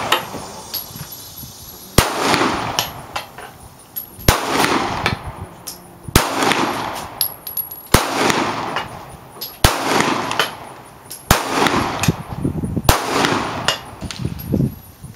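Smith & Wesson M&P Shield 9mm pistol firing slow, single shots, about seven of them, roughly one every two seconds. Each sharp report is followed by a short echo.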